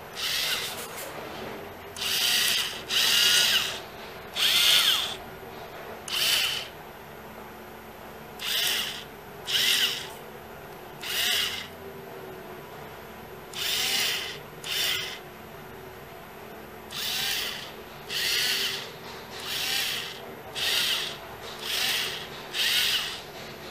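Small DC motor and gearbox of an opened cordless screwdriver whining in a string of short trigger bursts, about seventeen, each lasting around a second. It is running on a single 3.7 V cell from an old laptop battery, fitted in place of its original 2.4 V pack.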